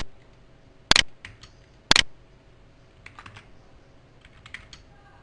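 Computer keyboard typing: three hard key strikes about a second apart at the start, then scattered lighter key taps.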